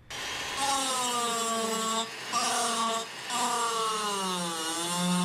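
Rotary power-carving tool with a coarse Kutzall burr grinding into walnut in three passes. The motor's whine dips in pitch each time the bit is pressed into the wood, most deeply near the end, over a steady rasping hiss of wood being removed.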